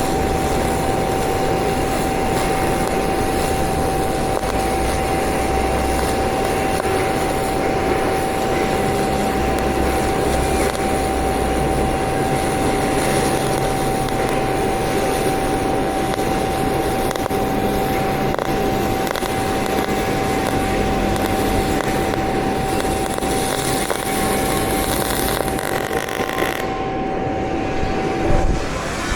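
MIG (GMAW) welding arc with solid wire crackling steadily through a long fillet bead, with a steady high whine underneath. The crackle thins out near the end.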